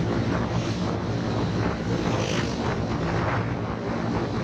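Motorcycle engine running steadily while riding along a road at cruising speed, with road noise.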